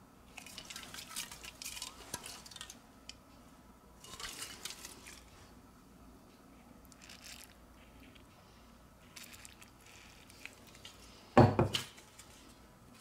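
Aerosol contact cleaner sprayed through a thin straw nozzle into a phone's back-cover seam, hissing in three short bursts. One loud knock comes about a second and a half before the end.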